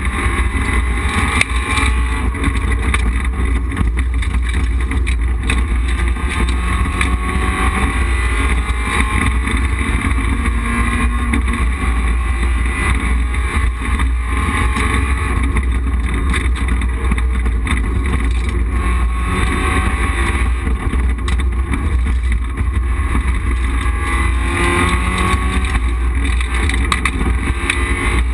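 Rally car engine driven hard on a special stage, heard from inside the cabin: a loud, continuous run with the revs repeatedly climbing and dropping over a steady low drone.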